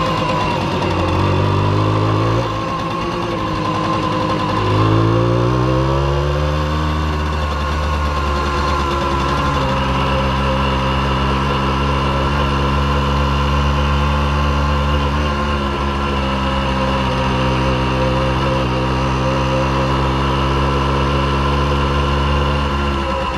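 Simson S51 B moped's 50 cc two-stroke single-cylinder engine running, its pitch rising briefly about a second in, dropping back, then climbing again around five seconds in and holding a steady speed for the rest of the time.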